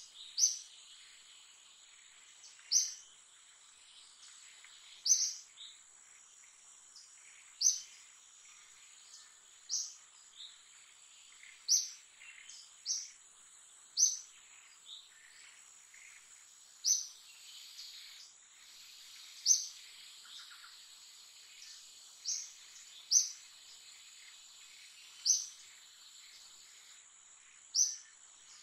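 A bird giving short, sharp high chirps every two seconds or so, over a steady high-pitched insect drone.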